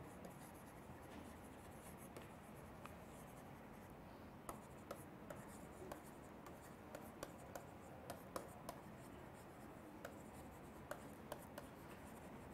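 Faint scratching and tapping of a stylus writing on a tablet, with small sharp clicks scattered through, most of them from about four seconds in, over a low hiss.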